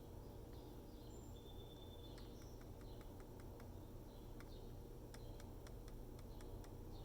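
Faint, sharp clicks from a loose cooling fan in a Dell XPS 13 7390 laptop as it is tapped, in quick runs of several clicks a few tenths of a second apart. The fan shakes in its mount, and the owner suspects it is the cause of the laptop's rattling.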